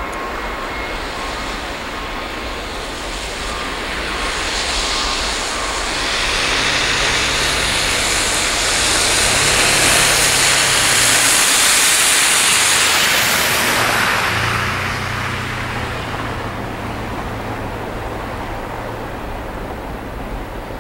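Norfolk Southern double-stack container train rolling past at a distance: a steady rumble of wheels on rail. A broad hiss swells up from about four seconds in, is loudest around ten to thirteen seconds, and fades away by about sixteen seconds.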